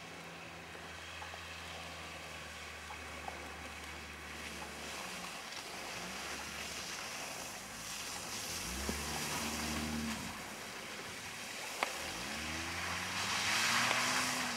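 Compact SUV's engine running steadily, then revving up and down again and again as the car slides through snow. Near the end the car passes close with a loud hissing rush of tyres spraying snow.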